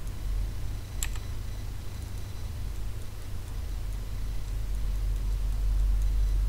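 Steady low electrical hum, with one sharp computer-mouse click about a second in and a few faint clicks.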